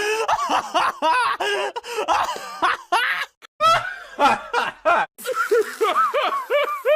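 A rapid string of short, high-pitched cartoon character voice sound effects, mostly laughs and giggles, cut one after another with a few brief gaps between clips.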